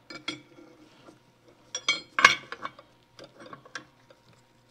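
Steel governor parts of a 1927 John Deere D clinking and knocking against one another and the cast-iron governor housing as they are worked into position by hand: a handful of sharp clicks, some with a short metallic ring, the loudest about two seconds in.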